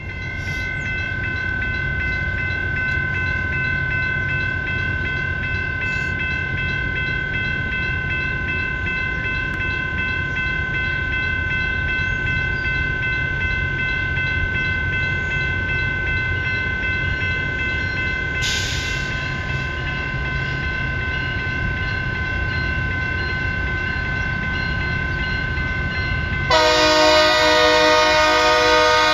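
Railroad crossing bell ringing steadily over a low rumble, then, near the end, the LORAM rail grinder's multi-tone horn sounds a loud, held chord as it approaches the crossing.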